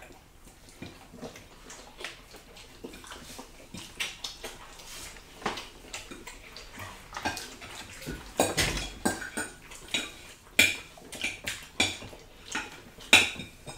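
Metal forks clinking and scraping on ceramic plates during a meal, the clinks coming thicker and louder in the second half.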